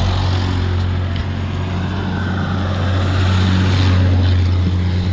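Road traffic: a steady engine hum, with a passing vehicle growing loudest about three to four seconds in.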